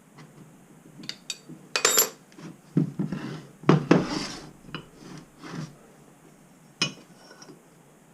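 Steel parts of a milling vice clinking and knocking together as it is handled and put back together: irregular metal clatter, loudest about two and four seconds in, with a last sharp knock near the end.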